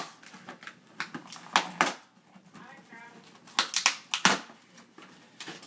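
A cardboard shoe box being opened by hand, its paper torn with a pen. There are sharp crackling tears, about half a dozen, with rustling between them.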